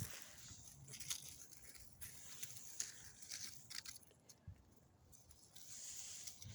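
Faint rustling and crunching of movement over trail ground, with a few sharper crackles in the first half.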